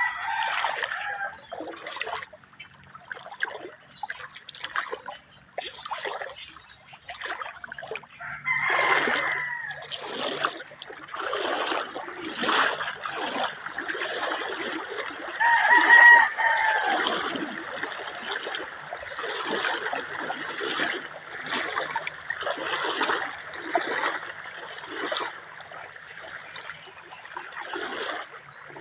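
A rooster crowing three times, near the start, about a third of the way in, and loudest about halfway through, over a river's water trickling and splashing.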